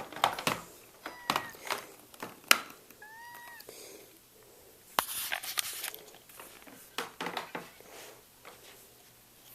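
Scattered clicks and knocks of things being handled, with one short, high cat meow about three seconds in.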